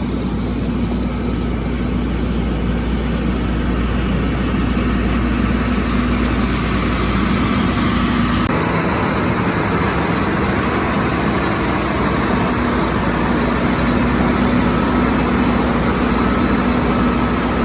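Pressure washer running steadily, a constant engine or pump hum under the hiss of the spray. The deep low rumble drops away about halfway through.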